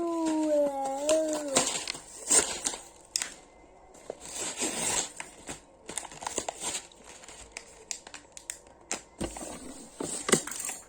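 Thin plastic toy packaging crinkling and tearing as it is handled and opened, in irregular rustles and sharp clicks. A long, falling voice note fades out in the first second and a half.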